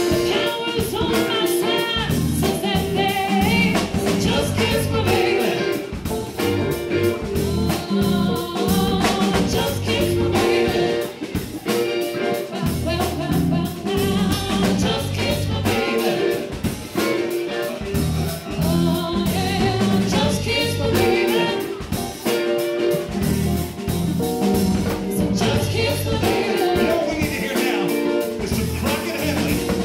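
Live band playing a song: singing over electric guitar, keyboards, bass guitar and drum kit.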